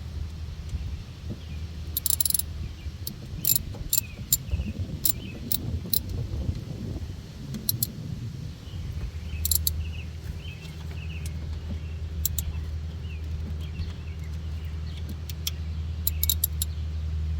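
Sharp metallic clicks and clinks of hand tools and fasteners on the engine, a dozen or so scattered irregularly, heard over a steady low hum with faint bird chirps.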